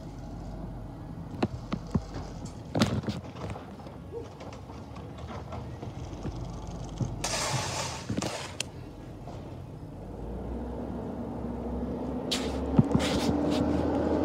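Garbage truck working its way up the street: scattered knocks and thuds, a hiss of about a second and a half midway, then its engine getting steadily louder with a slowly rising pitch as it comes closer, with a few sharp clanks near the end.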